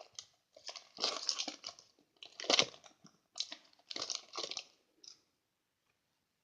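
Foil wrapper of a Pokémon TCG booster pack crinkling and being torn open, in several crackly bursts over about five seconds, the loudest about two and a half seconds in.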